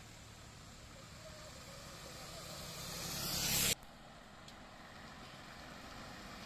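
Road traffic: vehicle noise swells and then cuts off abruptly a little past the middle. After that, a white utility vehicle's engine and tyres grow steadily louder as it comes toward the camera.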